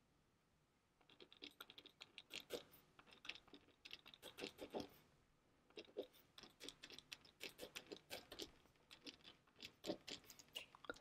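Pen writing on a small square of paper: faint, irregular scratching strokes that begin about a second in.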